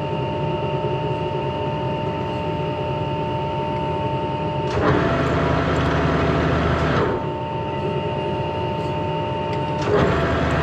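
Metalworking machine tool running with a steady whine. Twice, about five seconds in and again near the end, a click starts a rougher, hissing stretch of about two seconds.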